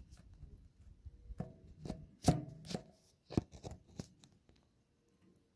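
A run of sharp, irregular taps or knocks, about a dozen over two to three seconds. The loudest comes about two and a half seconds in, and they die away about four and a half seconds in.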